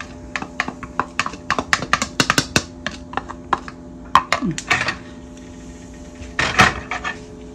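Metal spoon tapping and scraping rapidly against a small plastic tub, knocking ground sesame seed out into a frying pan of oil, with one louder clatter near the end.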